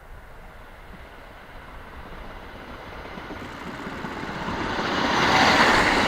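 A KiHa 40 diesel railcar approaches, its engine and wheels growing steadily louder and peaking near the end.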